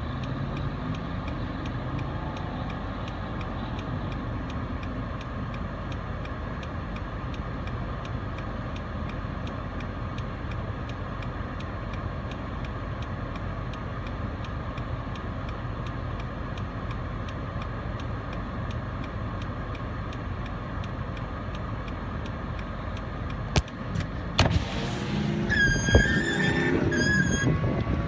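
Steady rumble of a car running inside its cabin, with a faint regular ticking about twice a second. Near the end it turns louder, with knocks and wavering high tones.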